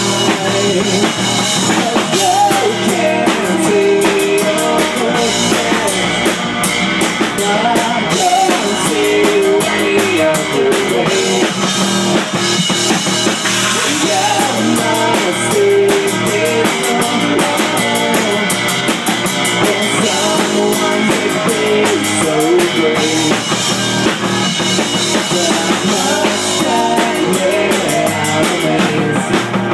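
Live rock band playing loudly and without a break: drum kit, electric guitar and keyboard.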